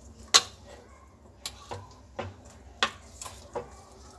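A metal spoon mixing moong dal chaat in a metal bowl, clinking against the bowl's side in irregular knocks, about seven in four seconds, two of them louder.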